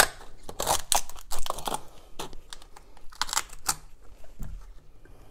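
Irregular clicks and rattles of a water pipe, with a bending spring inside it, being bent and pushed into a plumbing mounting box by hand. The clicks come thickest in the first four seconds and thin out near the end.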